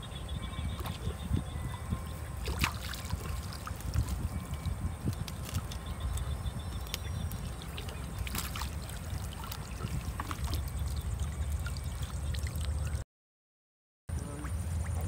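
Shallow water sloshing and gurgling, with scattered small splashes and clicks over a steady low rumble. It breaks off into silence for about a second near the end.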